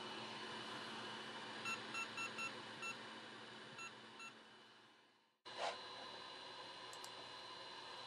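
JBC hot-air rework station blowing a steady hiss of air over the motherboard, with a quick run of five short electronic beeps about two seconds in and two more near four seconds. The hiss fades away about five seconds in, then a click and a faint steady hum.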